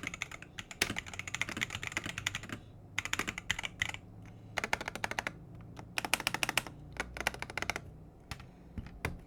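Typing on an Aula magnetic-switch keyboard as a sound test: fast runs of keystrokes in bursts of about a second, with short pauses between them.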